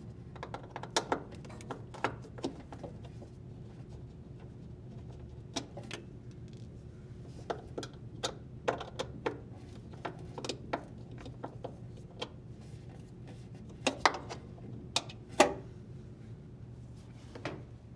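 Phillips screwdriver unthreading metal screws from a washer's plastic tub bracket: irregular clicks and ticks of the tool, screws and parts being handled, the loudest about two thirds of the way in, over a steady low hum.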